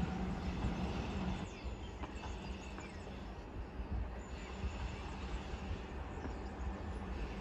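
Trenitalia ETR521 Rock electric train approaching from a distance: a faint steady rumble and hiss with wind on the microphone. The sound drops a little about a second and a half in.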